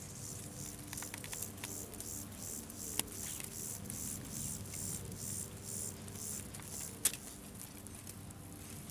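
Insects chirping in the grass: a steady run of high-pitched chirps, about three a second. Two sharp clicks cut through it, about three seconds in and, louder, about seven seconds in.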